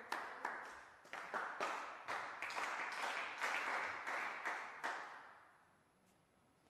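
Sparse applause from a small audience, with single claps standing out. It dies away about five seconds in.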